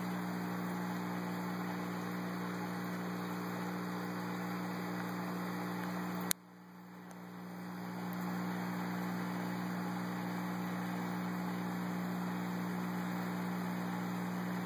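Steady electrical hum and hiss of running aquarium equipment. About six seconds in there is a single sharp click, after which the sound drops away and fades back up over about two seconds.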